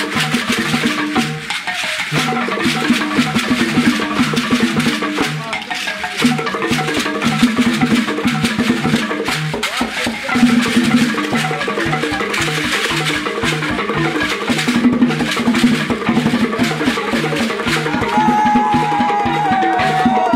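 Traditional drum-led percussion music: a steady, repeating pattern of low pitched drum strokes over dense, busy percussion, with a higher sliding tone joining near the end.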